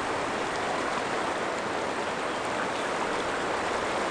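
The Rio Grande rushing over boulders in a rocky riffle: a steady, even rush of water.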